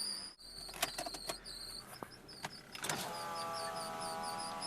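A few light clicks, then about three seconds in a steady whining squeal from the 2003 Mazda Protege's alternator drive belt sets in as the car sits idling in gear. The squeal is the belt slipping on its pulleys.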